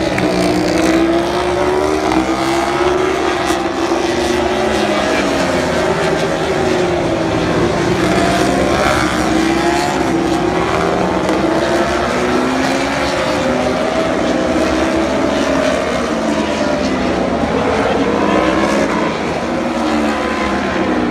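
Several MotoGP racing motorcycles passing through a run of corners, their engine notes overlapping and rising and falling in pitch with the throttle and gear changes.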